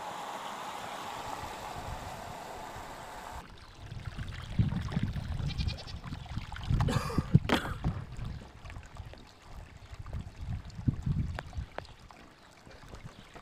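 Garden-hose water pouring and splashing into a plastic kiddie pool, cutting off abruptly after about three and a half seconds. Then low rumbles of wind on the microphone with a few short sharp sounds, the loudest cluster about seven seconds in.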